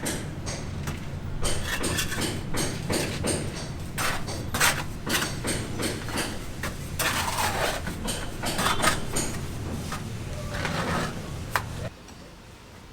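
Building-site work noise: irregular knocks and clatter, like hammering and handling of materials, over a steady low hum. It all cuts off abruptly near the end.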